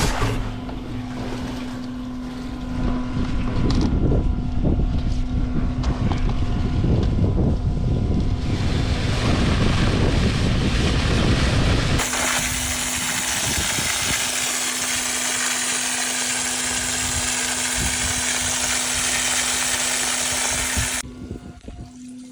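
A septic vacuum pump truck running with a steady hum, a rough low rumble at first, then a loud even hiss from about halfway that cuts off abruptly near the end.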